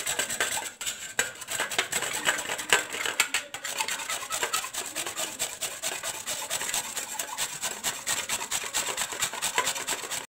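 Peeled green mango scraped in quick repeated strokes across a stainless steel grater.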